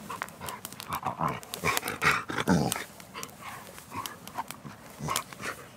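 A pet dog making whining, grumbling vocal sounds with gliding pitch, loudest about two seconds in, among sharp clicks of chewing as it is fed a bite of food.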